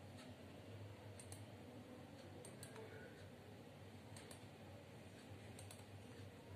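Computer mouse button clicked several times, each a faint quick double tick of press and release, about once every second or so, over a low steady hum.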